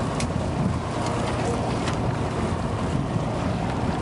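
Wind buffeting the microphone over the low running of a fishing boat and the wash of the sea along its hull, with two faint clicks.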